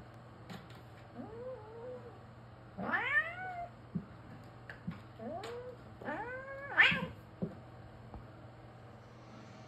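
Cat meowing: four drawn-out calls in two pairs, the loudest near seven seconds in, with a few light knocks between them.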